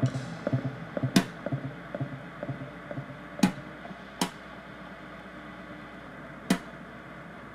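Sparse free-improvised percussion: four sharp, isolated strikes at irregular intervals, some with a short ringing tail, over soft guitar-like notes dying away in the first couple of seconds.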